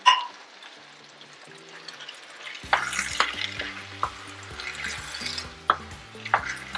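Wooden spoon stirring okra, beef, onions and cherry tomatoes in a frying pan of sizzling food, with scraping and knocks against the pan starting about two and a half seconds in. A single sharp clink right at the start.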